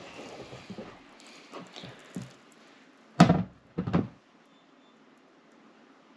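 Wet sourdough dough being handled in a plastic mixing bowl during a coil fold. There are faint sticky handling sounds, then two dull thumps against the bowl a little over three seconds in, under a second apart.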